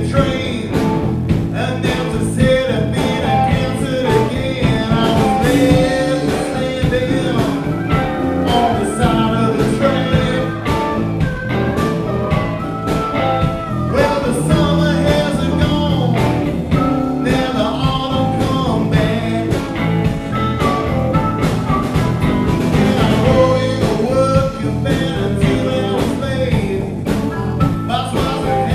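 Live blues band playing a song: electric guitars over a drum kit, at a steady full level.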